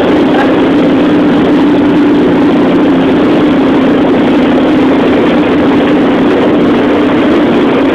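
A boat's engine running steadily, a constant low hum with a rushing noise over it, heard on board.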